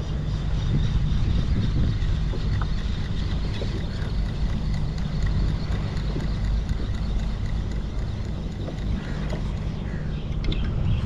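Wind rumbling steadily on an action-camera microphone, a low buffeting noise with faint higher hiss above it.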